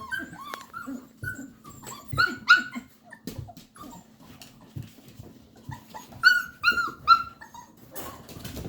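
Bernedoodle puppies whimpering and yipping in short, high squeaks: a pair about two seconds in and a quick run of three near the end, with fainter squeaks between.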